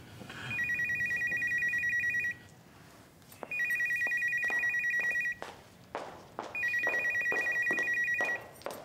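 Telephone ringing with an electronic warbling ring, a rapid trill between two high tones: three rings of about two seconds each, a second or so apart.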